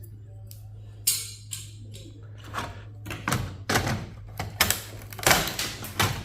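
Hand tools clicking, knocking and scraping against a server circuit board as parts are worked loose. The clicks are sparse at first and grow busier and louder from about three seconds in.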